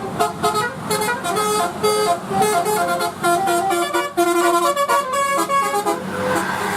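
Bus 'telolet' horn, a set of multi-tone air horns, playing a quick tune of stepped notes that ends about six seconds in, then a steady rushing noise.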